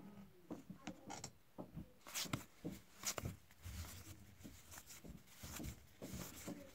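Cardboard trading cards being flipped and slid one past another in the hands, faint irregular flicks and clicks, the loudest a little after two and three seconds in.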